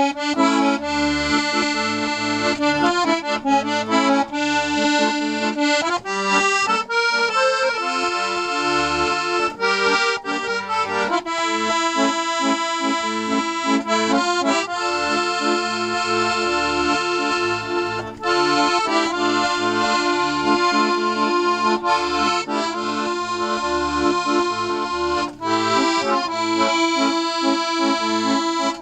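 A restored 72-bass piano accordion playing a folk tune, the melody over a steady pulse of bass and chord buttons.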